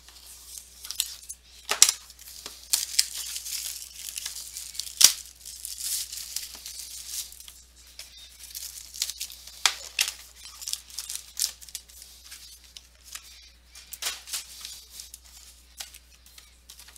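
Plastic shrink wrap being torn and crinkled off sealed trading-card hobby boxes, in irregular crackles with sharp cracks, the loudest about five seconds in, and knocks of the boxes being handled.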